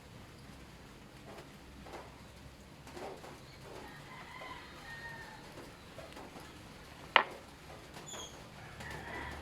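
Faint bird calls, chicken- and dove-like, over a quiet background with scattered small clicks, and one sharp loud click a little after seven seconds in.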